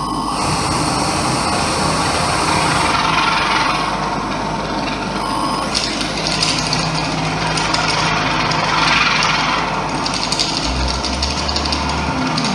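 Live experimental noise music: dense, grinding layered noise over steady droning tones. The texture changes abruptly every few seconds, with a band of hiss cutting in near the start and a deep hum entering briefly near the end.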